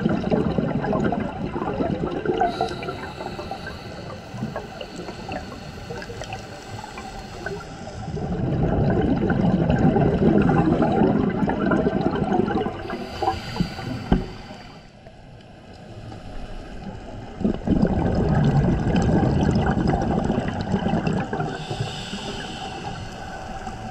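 Scuba regulator breathing heard underwater: three long bubbling bursts of exhaled air, with quieter stretches between them.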